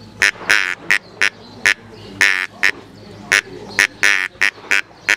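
Duck call blown as a gadwall call: a quick run of about a dozen short, sharp quacking notes, a few of them drawn out longer.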